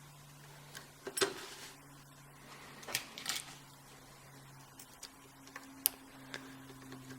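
Lock-picking tools handled at a padlock: scattered sharp metallic clicks and taps, loudest about a second in, around three seconds in and near six seconds, over a steady low hum.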